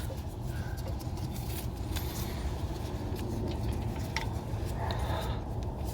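Faint scattered clicks and light taps from handling the new ABS wheel-speed sensor and its wiring at the wheel, over a steady low rumble.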